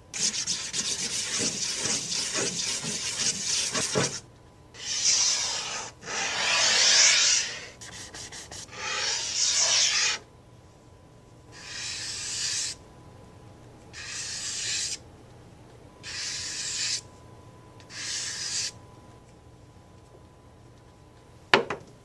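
Charcoal scratching and rubbing on paper: about four seconds of continuous scribbling, then about eight separate strokes of a second or so each, with one sharp click near the end.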